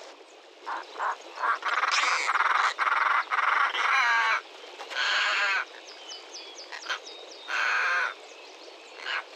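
European rollers giving a series of harsh, rasping calls, several of them about half a second long, with shorter calls in between.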